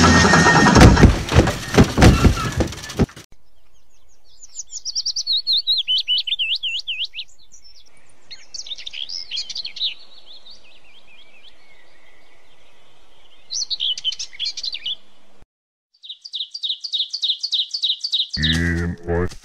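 A bird singing high, rapidly warbling phrases with pauses between them, including a quick run of repeated chirps near the end. Before that there are about three seconds of loud rattling noise with knocks that cuts off suddenly, and near the end a short, low, pitched cry.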